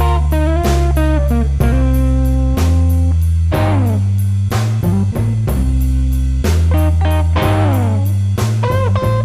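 Blues music led by guitar, with bent notes over a bass line and drums.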